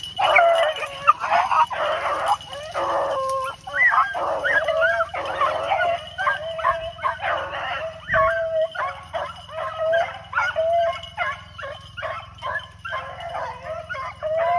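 A pack of rabbit hounds baying, a dense run of overlapping howls and barks that breaks out suddenly and keeps going. The dogs are running a rabbit's trail.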